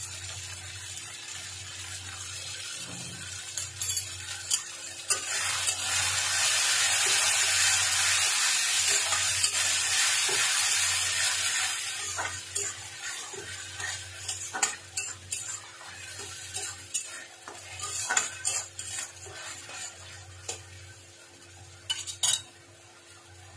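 Tomato, garlic and ginger paste sizzling in oil in a stainless steel kadai while a spatula stirs and scrapes through it, with clicks of the spatula against the pan. The sizzle swells loud about five seconds in and dies down after about twelve seconds, leaving mostly the scraping and clicking.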